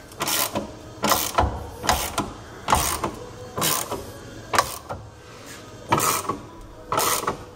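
A ratchet wrench being worked in short strokes, each a burst of ratcheting clicks, about once a second.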